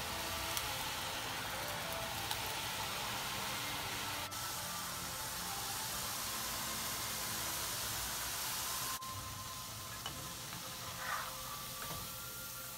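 Thin gram-flour dough strands (sev) deep-frying in hot oil, a steady hissing sizzle that drops a little in level about nine seconds in.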